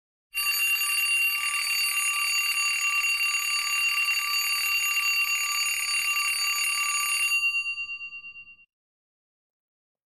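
Alarm clock bell ringing continuously for about seven seconds, then stopping suddenly, the ring dying away over about a second.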